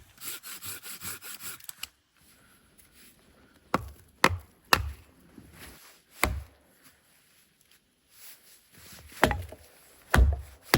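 Dead firewood being broken up by hand: a quick rasping scrape at first, then a series of sharp cracks and knocks of wood giving way, the loudest near the end.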